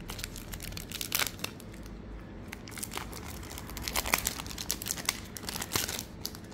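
Crinkling and rustling of old trading cards being handled and flipped through, with irregular light clicks as cards slide and snap against each other.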